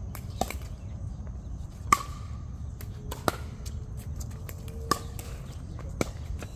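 A series of sharp knocks, about five at irregular intervals of one to one and a half seconds, a couple of them ringing briefly, over a steady low rumble.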